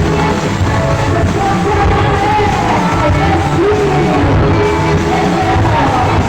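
Live band playing pop dance music with a singer, loud over a mobile sound system, with a heavy bass beat.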